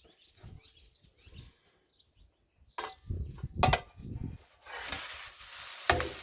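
Food sizzling in a frying pan, setting in about two-thirds of the way through and continuing steadily. Before it, a few sharp knocks, and one more near the end.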